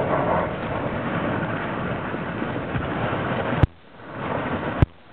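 Wind rushing over the microphone, a steady noisy rush that cuts off abruptly with a sharp click a little over three and a half seconds in. It builds again and is broken by another sharp click about a second later.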